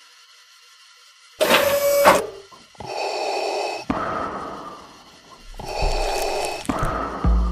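Cartoon sound effects as a machine forces a tube into a mouth: a sudden loud burst about a second and a half in, then several stretches of wheezing, gasping noise.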